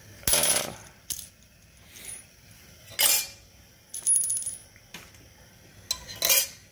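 Brass rifle cases, 6mm Creedmoor, dropping one at a time from an EP Integrations annealer's rotating wheel into its metal catch tray after the torch has heated their necks. Each drop lands on the other cases with a metallic clink and jingle, four times a few seconds apart, with lighter clicks from the wheel between them.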